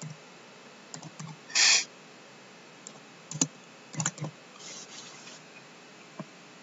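Scattered laptop keystrokes as a few characters are typed, with a short, loud puff of breathy noise about one and a half seconds in and a single mouse click near the end.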